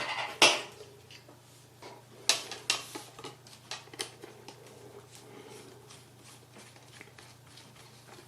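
Clicks and knocks of a disassembled plastic camping lantern and its circuit board being handled. A sharp knock comes about half a second in and two more follow a couple of seconds later, then a run of small, irregular clicks.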